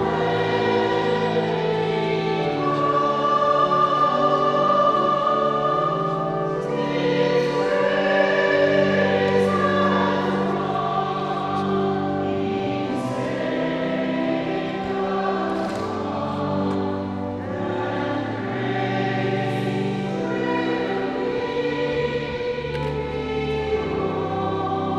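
Church choir singing a hymn, accompanied by a pipe organ holding long sustained low notes.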